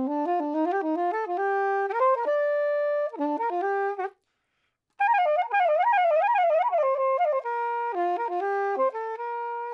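Soprano saxophone playing a practice pattern that climbs note by note, repeated as a sequence through different keys. It breaks off for about a second near the middle, then comes back higher with quick up-and-down runs before settling onto lower, longer notes.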